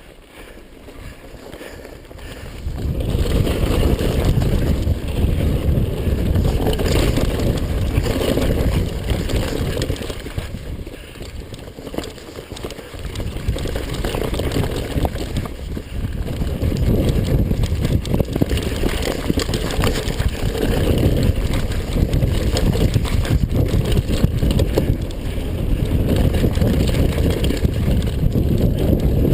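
Wind buffeting the microphone over the rumble and rattle of a mountain bike riding down a rough trail. It grows louder about three seconds in as the bike picks up speed, then surges and eases with the terrain.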